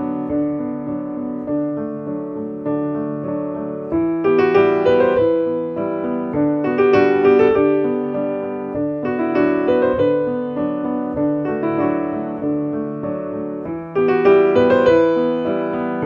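Background piano music: a slow melody of ringing, decaying notes that grows louder about four seconds in and again near the end.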